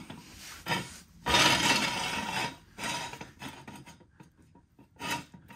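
Steel jack stand being set in place: a scrape of over a second as it slides across the concrete floor, about a second in, with scattered metal clinks and knocks around it.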